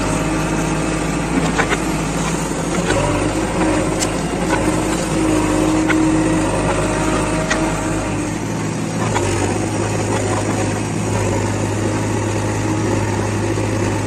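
JCB 3DX backhoe loader's diesel engine running under load as the backhoe bucket digs soil, with a few sharp knocks. Near the middle the engine note changes and settles into a steadier low hum.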